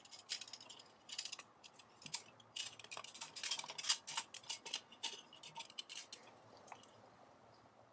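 Coiled copper tubing clinking and scraping against a stainless steel cylinder as the coil is slid along it and handled, a quick irregular run of light metallic clicks and rattles that stops about a second before the end.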